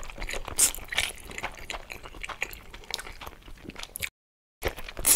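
Close-miked eating of spaghetti in tomato sauce: slurping in noodles and chewing, with many small wet mouth clicks and smacks. The sound drops out completely for about half a second near the end.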